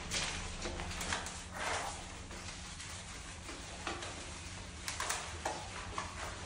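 Hands scrubbing lather into a dog's soapy wet fur: irregular wet rubbing with a few sharp clicks, over a steady low hum.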